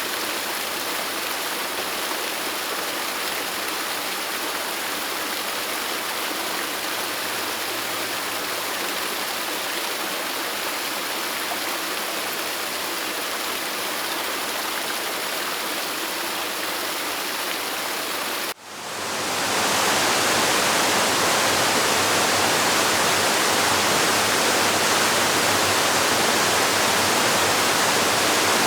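Waterfall rushing: a steady, even roar of falling water. About two-thirds of the way through it cuts out for an instant and comes back louder and brighter.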